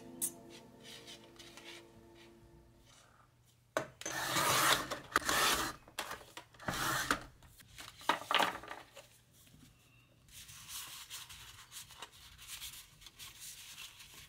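Background music fading out, then a series of irregular rubbing and scraping strokes.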